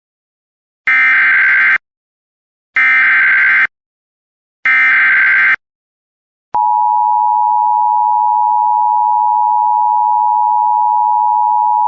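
Emergency Alert System opening tones: three short bursts of SAME digital header data, each about a second long and about two seconds apart, then a long steady attention-signal tone starting about six and a half seconds in. Together they signal the start of an emergency alert, here a severe thunderstorm warning.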